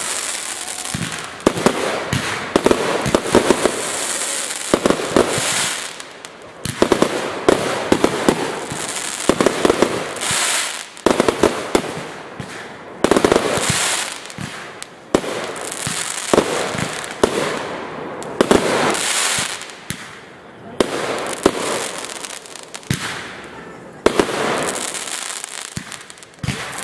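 Aerial firework shells bursting one after another in quick succession: many sharp reports, with bursts of high hissing crackle between them.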